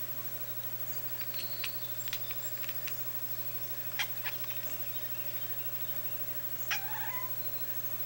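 A domestic cat's whiny, irritated meow: one short cry that comes a little before the end. It is the complaint this cat makes when someone disturbs him by coughing. Several short, sharp clicks come before it.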